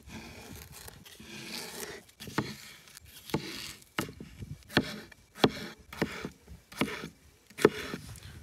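Knife chopping vegetables on a wooden cutting board: scraping and rustling, then about ten sharp knocks from about two seconds in, one every half second to second.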